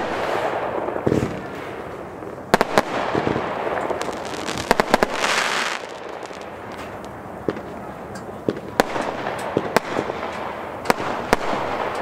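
A ZENA Kracherblitz firework battery firing shot after shot. Sharp reports come at irregular spacing over a continuous crackling hiss, with a dense burst of crackle about five seconds in.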